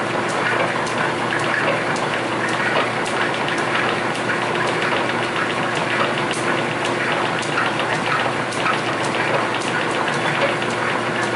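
Old Camelback drill press running with a Jarvis tapping head threading holes in a metal plate: a steady motor hum with frequent irregular light clicks from the tap and the tapping head.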